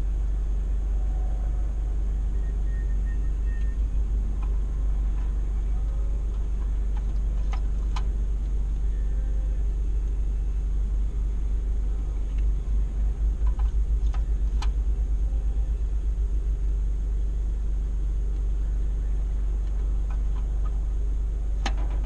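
Car engine idling while the car is stopped, heard from inside the cabin as a steady low rumble. For a few seconds past the middle it swells into a pulsing throb.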